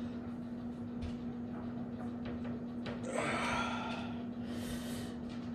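A person breathing hard under strain during dumbbell curls: a forceful exhale about three seconds in and a second, softer one near the end. A steady low hum runs underneath.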